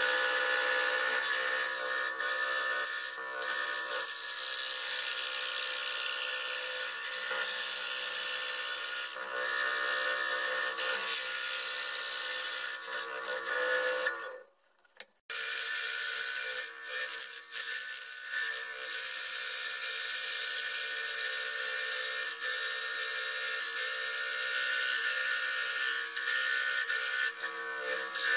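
Scroll saw running, its reciprocating blade cutting plywood along a paper pattern. About halfway through the sound drops out for about a second, then the saw runs and cuts again.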